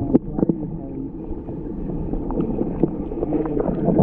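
Muffled water movement heard through an action camera's waterproof housing held underwater, a dull, low noise with a couple of sharp knocks near the start.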